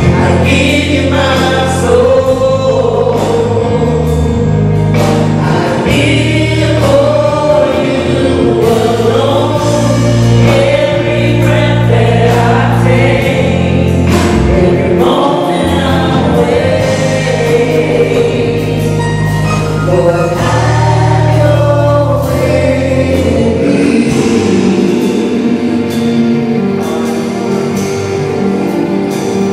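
Gospel choir singing with a backing band: steady bass notes under the voices and a regular beat of drum and cymbal strikes.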